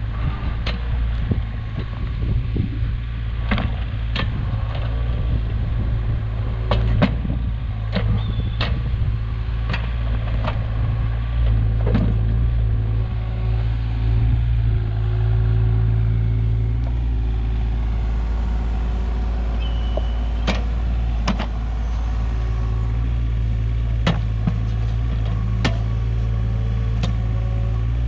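Kato 35 mini excavator's diesel engine running steadily under work, with scattered sharp knocks and clanks as the machine digs and moves.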